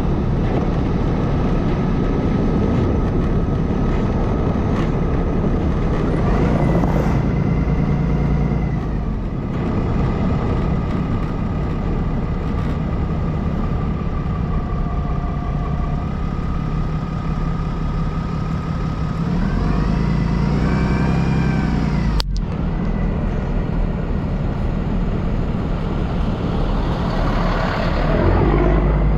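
A road vehicle runs steadily with engine and road noise. Twice a sound rises and then falls in pitch, like a vehicle passing, and there is one sharp click about 22 seconds in.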